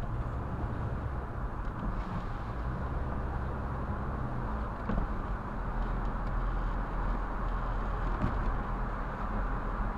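A car driving along a city street, heard from inside the cabin: a steady low rumble of engine and tyre noise, with a faint tick about five seconds in.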